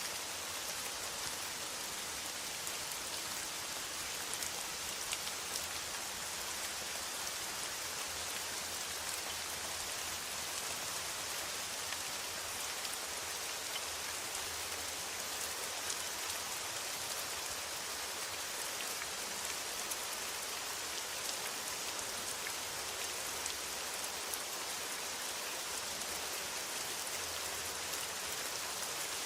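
Steady rain falling on a metal roof, a constant dense hiss with fine drop ticks throughout.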